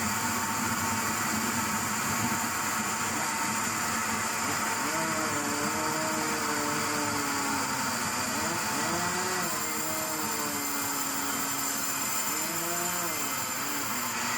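Sawmill machinery running steadily with a pitched hum that, from about five seconds in, repeatedly dips and rises again.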